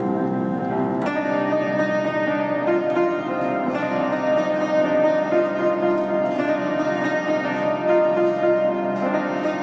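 Old upright piano, its front panel off, played in fast repeated figures so that the notes ring together in a dense, sustained wash. The sound grows brighter about a second in.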